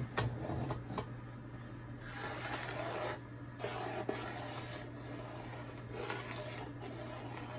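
Metal spoon stirring and scraping the bottom of an aluminium pot of thick simmering milk, kept moving so it does not stick. A couple of knocks against the pot in the first second, then three scraping strokes, each about a second long.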